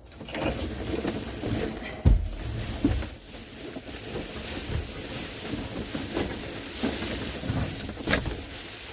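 Wind rumbling on the microphone, with handling knocks: a sharp thump about two seconds in and another near the end.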